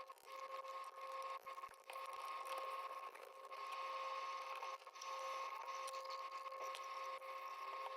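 Small electric motor running with a steady, even whine, cutting out briefly a few times.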